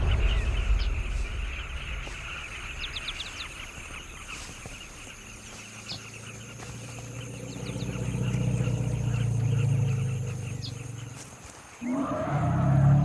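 Wild animal sounds: a dense chatter of bird calls with a few short high chirps, then a deep pitched rumbling call that swells from about six seconds in and fades out. Near the end the sound cuts abruptly to a different deep, pitched sound.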